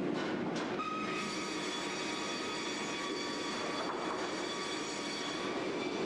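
Kara circular sawmill line running with a steady mechanical din. A high, even whine comes in about a second in and fades shortly before the end.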